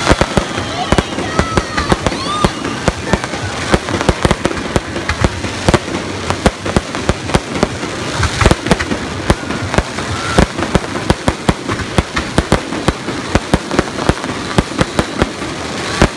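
Fireworks going off in rapid succession, a dense run of sharp bangs and crackling pops, several a second, with no let-up.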